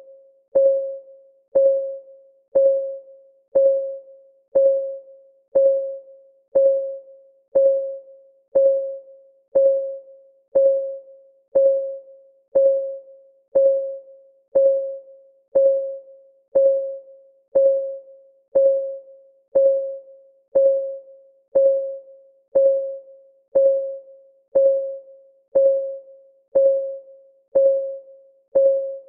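Countdown timer's clock ticking sound: a short tick with a clear pitch, about once a second, each dying away quickly.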